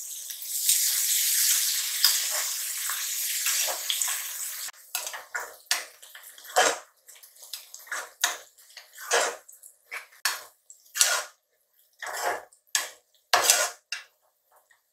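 Sliced onions frying in oil and ghee in an aluminium pressure cooker. For the first few seconds there is a steady sizzle, then a perforated metal spatula scrapes and stirs against the pot base in separate strokes, about one a second.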